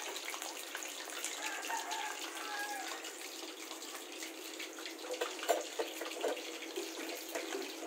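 Chicken pieces deep-frying in hot oil in a wok, a steady sizzle, with a few light clicks between about five and six and a half seconds in.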